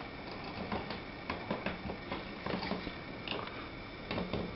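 Scattered light clicks and taps of jump-starter clamps and multimeter leads being handled and clipped together.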